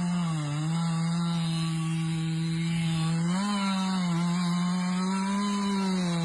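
Chainsaw engine running at high speed as it cuts into a large tree trunk. Its pitch dips briefly about half a second in and rises again about three and a half seconds in.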